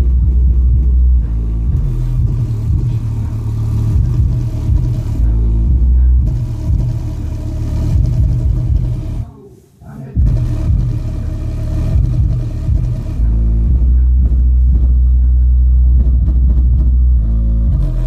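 Bass-boosted rap track played loud through a subwoofer: heavy deep bass under rapped vocals. The bass drops out for about half a second near the middle, then comes back.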